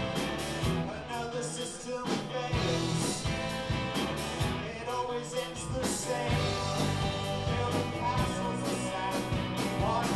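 Rock band playing live with drum kit, electric bass and electric guitar, the drums keeping a steady beat.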